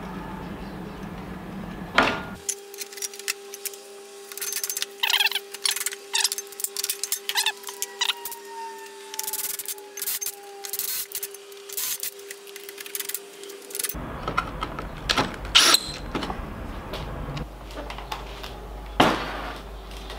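Metalworking clanks and clicks: a loud metal knock about two seconds in as the homemade sheet-metal bender folds aluminium checker plate, then clicks and clinks over a steady hum while the plate is drilled and fixed in place, then knocks of metal parts being handled.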